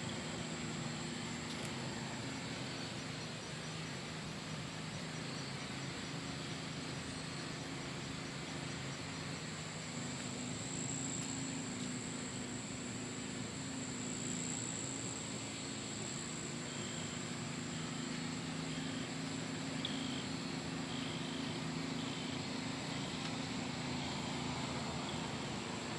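Outdoor backyard ambience: a steady high-pitched insect drone over a low steady hum. In the second half a short high chirp repeats about once a second.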